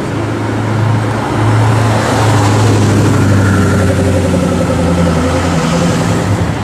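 Koenigsegg Agera R's twin-turbo V8 driving past at low speed in traffic, its engine note growing louder about two seconds in and easing slightly near the end.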